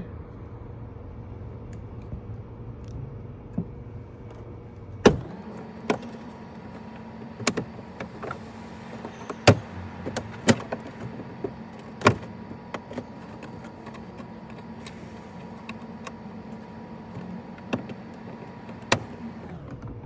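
Plastic interior trim panel over a 1991 Nissan 240SX's seatbelt retractor being pulled and worked loose by hand, giving scattered sharp clicks and knocks as its clips are fidgeted. Underneath runs a steady machine hum that steps up in pitch about five seconds in.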